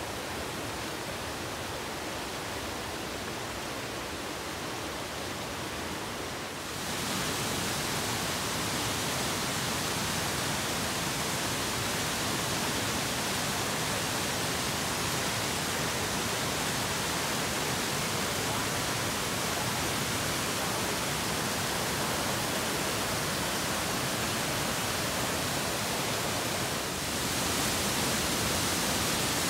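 A waterfall and cascading creek rushing steadily. It grows louder about seven seconds in and again near the end.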